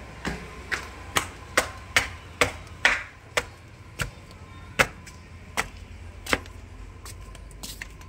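Footsteps in rubber flip-flops on a concrete floor: sharp slaps about two a second, slowing to roughly one a second after about four seconds.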